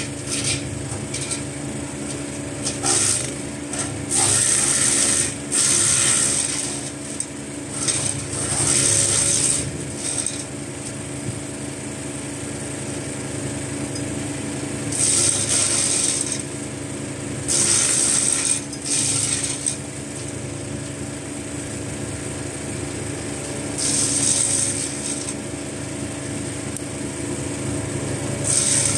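POWERFIST 420cc (15 hp) gas wood chipper running steadily, with a loud burst of chipping every few seconds as branches are fed through and shredded.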